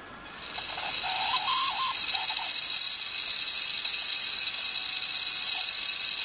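Small brushed motor driving a clear plastic gearbox of green gears at a slow crawl under throttle: a steady gear whir that starts about half a second in and builds, then holds.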